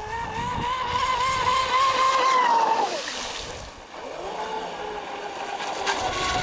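Traxxas M41 brushless electric RC speed boat running across the water: a high motor whine that holds, drops away about three seconds in, then rises again and holds, over a hiss of water.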